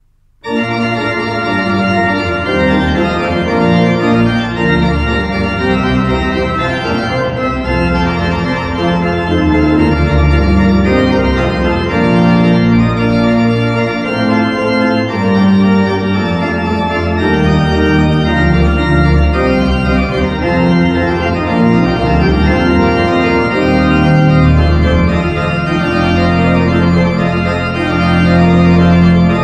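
Church pipe organ playing sustained chords, starting about half a second in.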